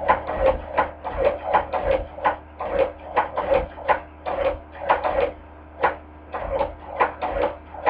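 Hand-crank cobbler sewing machine stitching, its mechanism clacking about two to three times a second in a slightly uneven rhythm as the crank is turned.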